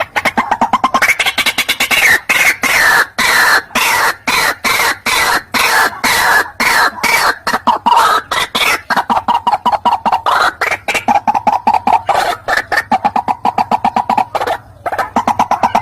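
White-breasted waterhen calls played as a trapping lure: a long, unbroken run of short, harsh notes, several a second, the pitch slowly sinking as the series goes on.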